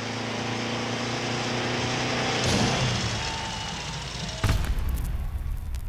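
Motorcycle engine running hard at a steady high pitch, its note fading into hiss about two and a half seconds in. About four and a half seconds in, a sudden loud rushing noise follows and then dies away.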